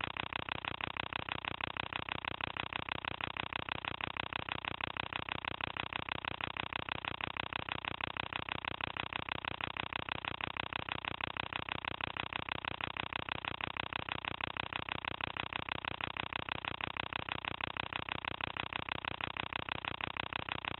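Cine film projector running: a steady, fast, evenly repeating mechanical clatter and whirr from the film transport.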